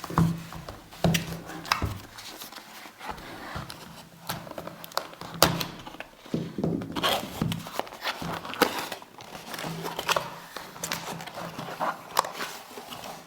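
An iPhone 4S retail box being opened by hand: irregular rustles, scrapes and light knocks of the packaging, with sharper clicks about 5.5 s in and again around 11 to 12 s in.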